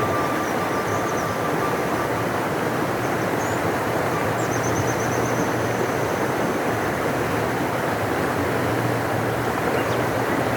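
A large river rushing: a steady, unbroken noise of flowing water.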